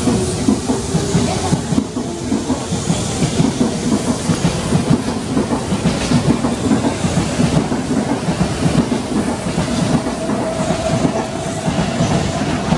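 Electric commuter train running past at close range, its wheels clattering rhythmically over the rail joints and points, with a steady hiss. A steady whine joins about ten seconds in.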